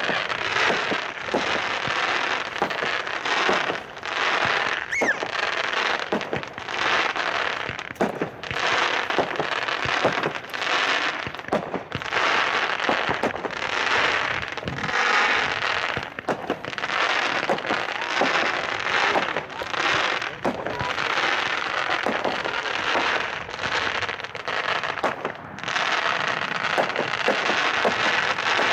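Day of the Lord, a 49-shot 1.4G consumer fireworks cake with mini zipper effects, firing shot after shot. Sharp reports overlap dense noisy bursts that swell and fade every second or two.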